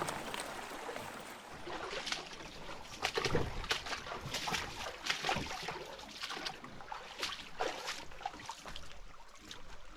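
Water trickling and splashing, with irregular knocks and scrapes through it.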